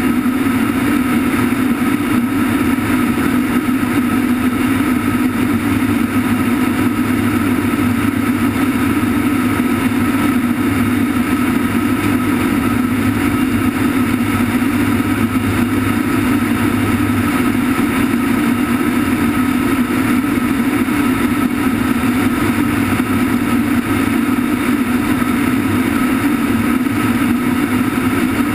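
Cargo aircraft in flight heard from the open rear ramp: a loud, steady drone of engines and rushing slipstream. A lower hum underneath drops out a little past halfway.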